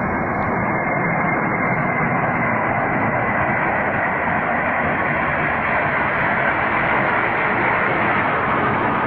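Jet engine noise from a formation of military jets flying overhead: a steady rushing sound that grows a little louder and brighter a few seconds in.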